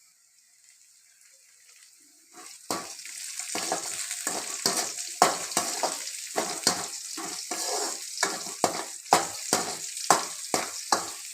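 Food frying in hot oil in a pan, with a spatula stirring and scraping it in regular strokes about twice a second. A faint sizzle comes first, and the stirring starts about two seconds in.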